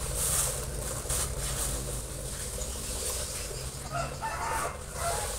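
Bangkok gamecock chickens calling, a pitched call about four seconds in and a short one near the end, with a rustle in the first second.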